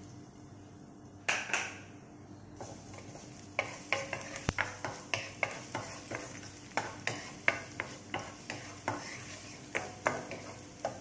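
Chopped garlic sizzling in hot oil in a frying pan, stirred with a wooden spoon that scrapes and taps against the pan about twice a second from about three seconds in.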